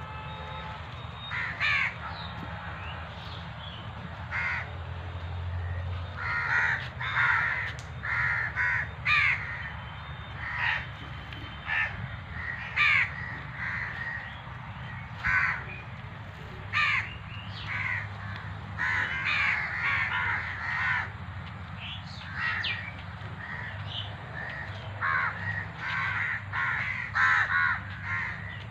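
Crows cawing over and over, many short calls at irregular intervals, over a steady low background hum.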